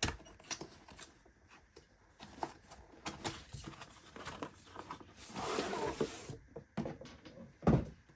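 Product packaging being opened and handled: scattered rustles and light clicks, a longer tearing rustle about five seconds in, and a knock near the end.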